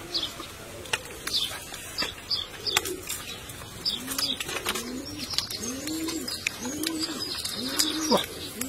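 A dove cooing in a run of evenly spaced low notes from about halfway through, with small birds chirping high above it. Sharp clicks and chewing of people eating come and go throughout.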